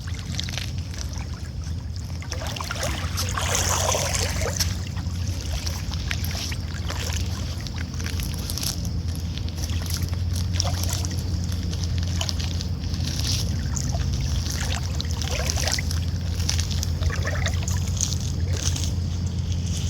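Small waves sloshing and lapping at the shore in irregular soft splashes, over a steady low rumble.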